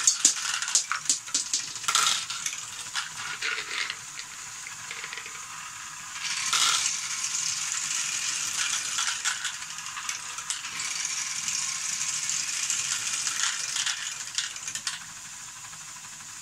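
LEGO Technic Great Ball Contraption module: small plastic balls clicking and rattling down plastic ramps over the steady rattle of the running chain lift. The clicks are thickest in the first few seconds. About fifteen seconds in the rattle drops to a quieter steady sound once the ramps have emptied.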